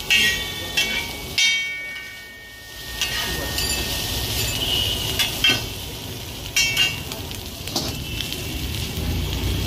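Egg chowmein frying on a large flat griddle: two metal spatulas clang and scrape against the pan, the first few strikes ringing. About three seconds in, a steady sizzle takes over, broken by scattered clinks of the spatulas.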